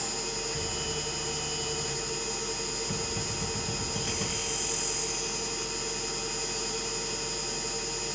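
Tormach PCNC 1100 CNC mill's spindle running at speed with a steady high whine, its end mill facing off the top of an aluminum fixture plate. There is a rougher, noisier patch a few seconds in.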